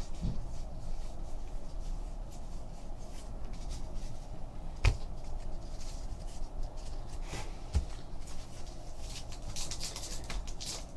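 Trading cards being handled and sorted by hand: soft sliding and rustling, with a sharp tap about five seconds in and a lighter one near eight seconds.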